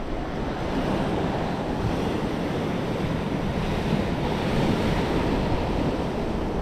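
Sea surf washing steadily against the shore, with wind buffeting the microphone.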